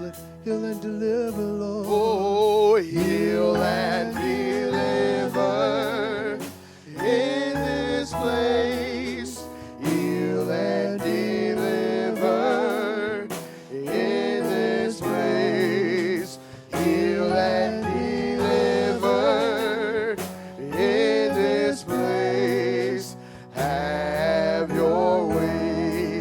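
Gospel music: singing with a wide vibrato over held chords, in phrases a few seconds long separated by short breaths.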